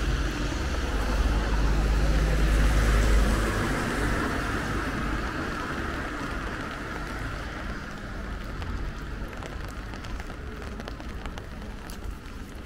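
A vehicle passing on a wet road: tyre hiss on the wet asphalt with a low rumble, loudest a few seconds in and then fading away, over light rain.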